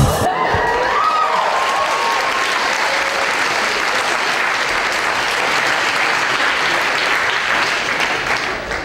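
Large lecture-hall audience applauding steadily for the result of the pendulum demonstration, with a few voices calling out in the first second or so. The applause dies down near the end.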